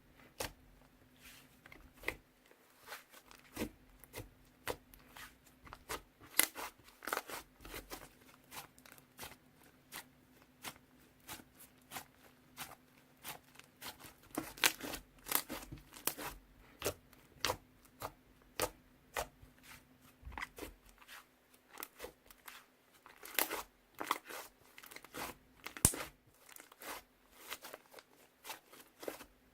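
Butter slime being squeezed, stretched and poked by hand, giving a dense, irregular run of sharp crackles and pops. A faint steady hum runs underneath.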